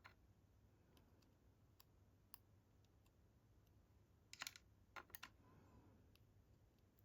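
Near silence with a few faint, small clicks and taps from the Chubb padlock's pins and parts being handled, most of them about four to five seconds in.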